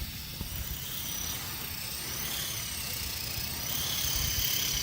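Remote-control helicopter flying: a high motor whine with several tones that shift in pitch, over a low rumble.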